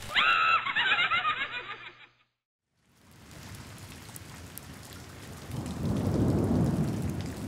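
Spooky sound effects: a loud, wavering, high-pitched cry for about two seconds, which rises in pitch at its start, then a moment of silence. After that, rain and a rumble of thunder build up and swell near the end.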